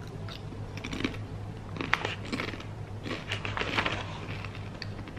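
Crunching of a cassava chip being bitten and chewed close to the mouth: scattered crisp cracks, the sharpest about two seconds in, then a quicker run of crunches between three and four seconds.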